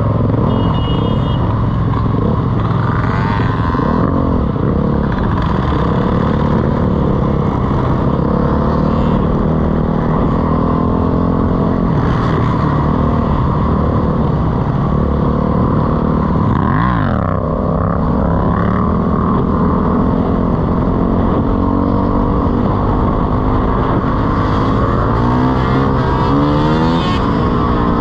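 Dirt bike engine running under way with heavy wind rush on the microphone, other motorcycles running alongside. The revs drop sharply and climb again about two-thirds of the way through, and rise again near the end.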